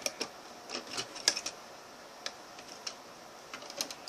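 Plastic Lego bricks clicking and tapping as pieces are handled and pressed together: an irregular scatter of sharp clicks, the loudest just over a second in.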